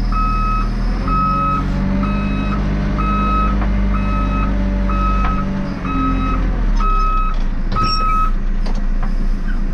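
JCB 3CX backhoe loader reversing, its diesel engine running steadily under a reversing alarm that beeps about once a second. The beeping stops a little after eight seconds in.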